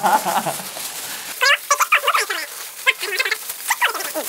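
Aluminium foil crinkling and crumpling in handfuls while voices chatter, both sped up by fast-forward playback so the voices come out squeaky and high-pitched. The sped-up part starts about a second and a half in.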